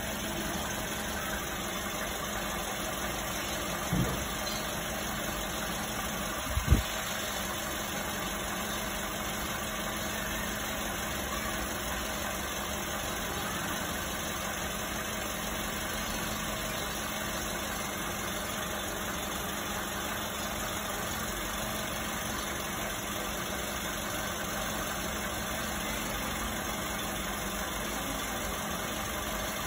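Toyota Calya engine idling steadily at about 700 rpm while it warms up, coolant not yet hot enough to open the thermostat. Two short knocks sound a few seconds in.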